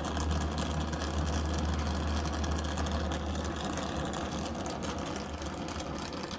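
Oxy-acetylene torch flame roaring steadily while heating a copper pipe joint for brazing. A low rumble under the roar eases off a little about halfway through.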